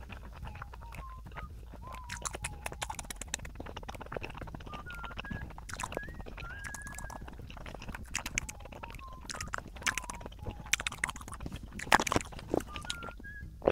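Soft background music with a thin, high melody of gliding notes, over close mouth sounds of chewing with occasional crisp clicks.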